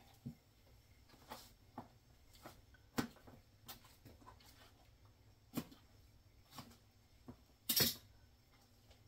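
Knife cutting cucumbers on a cutting board: scattered sharp taps and clicks at an uneven pace, with a longer, louder clatter near the end.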